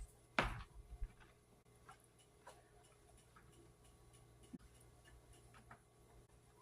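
A cat eating at its bowl: faint, irregular clicks about once a second, with one louder knock just after the start.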